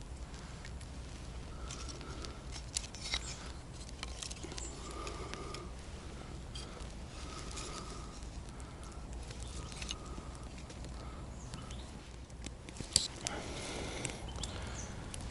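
Faint outdoor sounds: scattered small clicks and rustles over a low steady hum, with short chirp-like notes repeating every half second or so, and a sharper click about thirteen seconds in.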